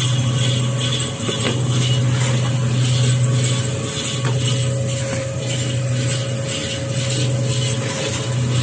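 Manual kitchen towel paper log cutting machine running with a steady mechanical hum, its saw turning as paper logs are pushed through, with a faint knock or two.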